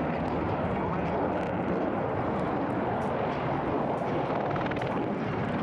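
Steady aircraft noise: an even rushing drone that holds at one level throughout.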